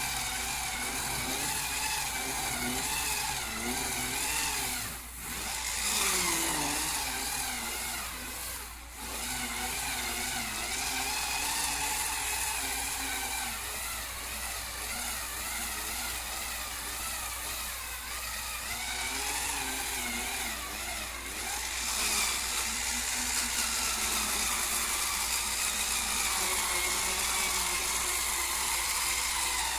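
Hurricane Spin Scrubber's small battery motor whirring as it spins its brush, its pitch wavering up and down, with two brief dips about five and nine seconds in.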